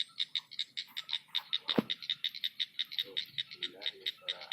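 Frogs calling at night in a rapid, even train of short clicking notes, about eight a second, with one sharp knock about two seconds in.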